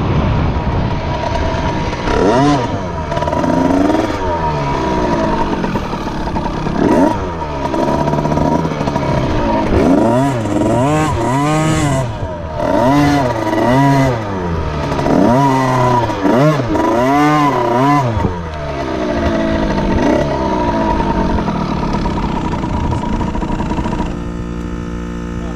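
Motocross bike engine revving up and down again and again as it is ridden, a dozen or so rises and falls in pitch. Near the end it settles to a steady idle.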